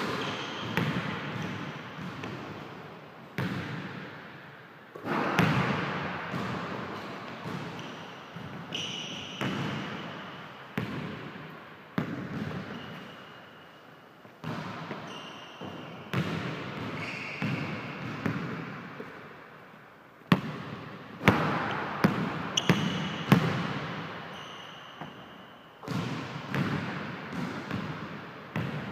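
A basketball bouncing and being dribbled on a hardwood gym floor, each bounce trailing off in a long echo, with a quick run of hard dribbles about twenty seconds in. Sneakers squeak briefly on the floor now and then.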